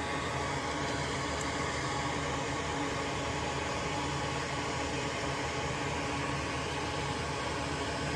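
Steady whir of a fan running, with a low hum under it.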